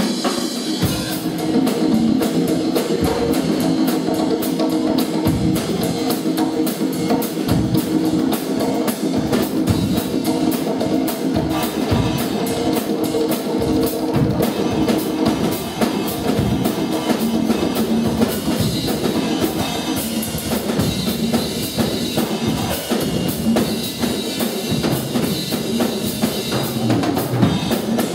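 Live rock band playing an instrumental, with the drum kit prominent: a busy run of drum hits under sustained chords.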